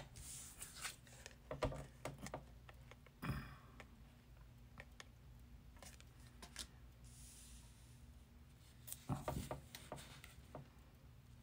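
Faint handling of a tarot deck: scattered soft taps, clicks and brief rustles of the cards, over a faint steady low hum.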